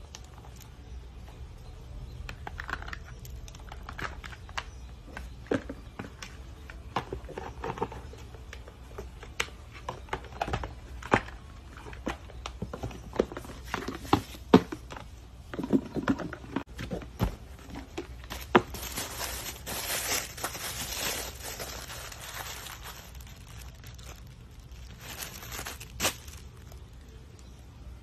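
Unboxing handling sounds: tissue paper rustling and crinkling, with scattered taps and clicks as rigid gift boxes and their contents are handled. A longer stretch of paper rustling comes about two-thirds of the way through, and a shorter one near the end.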